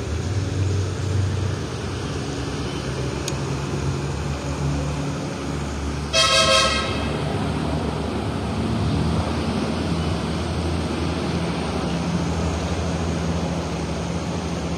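Steady rumble of road traffic, with a vehicle horn honking once, briefly, about six seconds in.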